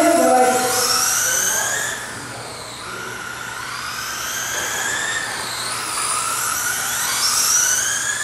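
Several electric RC race cars' motors whining, their pitch rising and falling over and over as the cars accelerate down straights and slow for corners.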